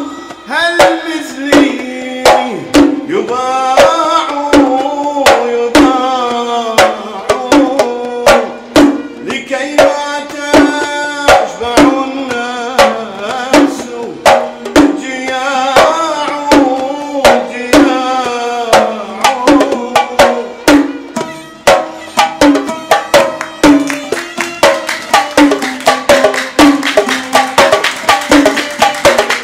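An oud plays a sawt melody in plucked phrases over regular strokes of a mirwas hand drum. Near the end the strokes come faster and denser.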